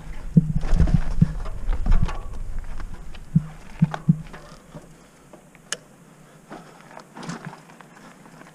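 Trek Roscoe 6 hardtail mountain bike riding over roots and rocks on dirt singletrack: tyre rumble and the frame and parts rattling and knocking for the first two seconds, a few sharp knocks a second or so later, then quieter rolling with scattered clicks from about halfway.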